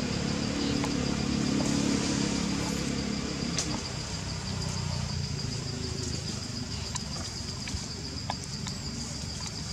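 Low engine rumble of a passing vehicle, loudest about two seconds in and then easing off, over a steady high-pitched insect drone.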